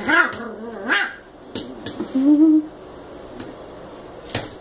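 Two small dogs at play, an American Eskimo puppy and a Chihuahua mix: two short high yaps about a second apart, then a brief low growl, with a few sharp clicks.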